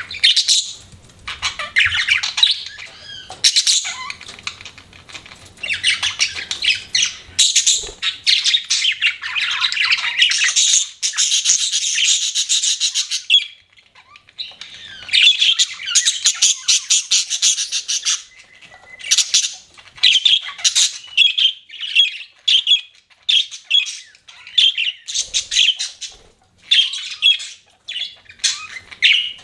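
Budgerigars chattering: fast warbling chirps and squawks, with a short lull about halfway, then quick separate chirps.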